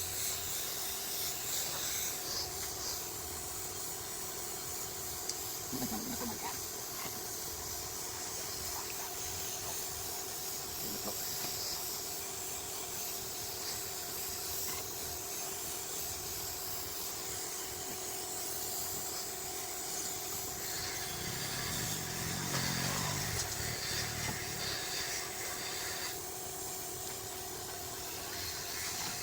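Wood lathe running: a steady machine hum with a constant hiss, and a deeper rumble that swells briefly about three quarters of the way through.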